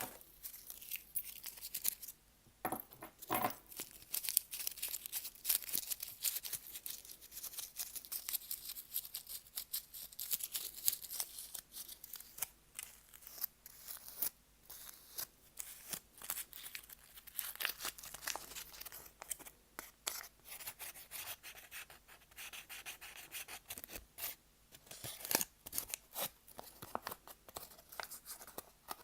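Close-miked ASMR trigger sounds: rapid, crisp scratching and rustling made of many sharp little clicks, going on steadily with brief pauses.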